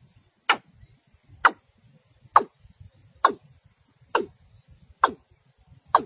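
Watercock (cúm núm) calling: a regular series of short, quickly falling notes, seven of them at about one a second.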